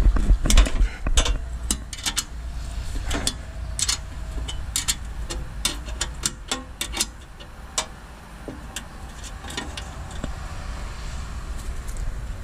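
Metal tools clinking and knocking on metal during a repair: a run of sharp, irregular clicks and taps, thick in the first several seconds and sparser afterwards, over a steady low rumble.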